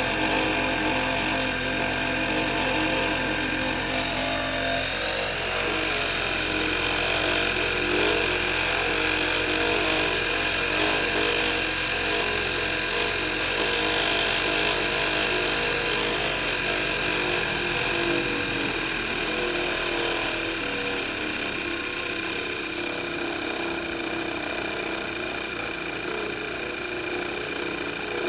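Running car engine with a steady high-pitched whine and a mechanical buzzing from a failing alternator; the lower part of the sound changes about five seconds in and fades over the last third. The noise went away once the alternator was replaced.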